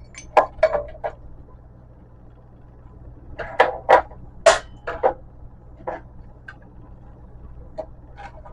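Sharp clanks and knocks of metal light-fixture parts being handled and taken apart: a few in the first second, then a louder run of them from about three and a half to six seconds in, one briefly ringing.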